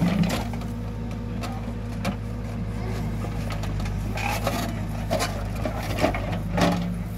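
Hidromek backhoe loader's diesel engine running steadily as its backhoe bucket digs a trench in dry soil, with a few sharp knocks and scrapes of the bucket and earth about four seconds in and near the end.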